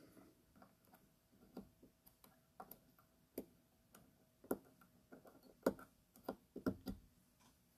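Quiet, scattered small metallic clicks and ticks as a spring clip is worked onto a Molecule 22 atomizer's post with a stainless steel installation tool. The clip is being pushed down too fast, so that one of its tabs gets caught.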